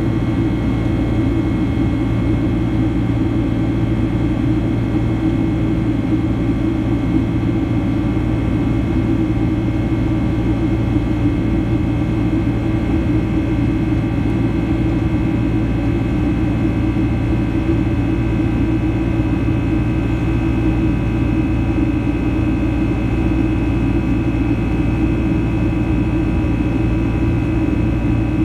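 Boeing 767-300ER jet engine noise heard inside the cabin beside the wing in flight after takeoff: a steady low rumble and rush of air with several steady high whine tones, one of which grows a little stronger near the end.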